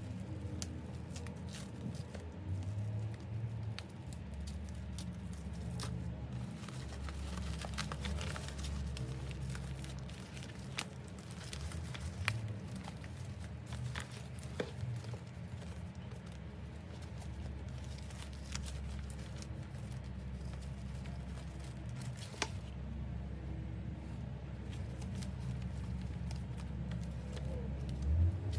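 Packaging being handled while a handbag is unboxed: scattered crinkling, rustling and small clicks, over a low steady hum.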